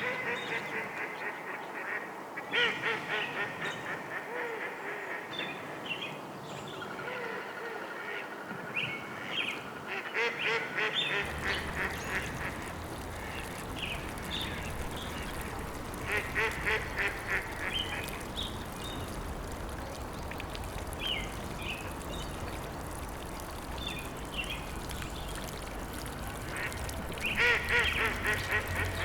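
Birds calling in repeated bursts of quick, rapid notes over a steady natural background. A low rumble joins about eleven seconds in.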